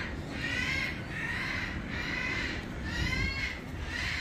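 A bird giving a series of harsh, cawing calls, about one call a second.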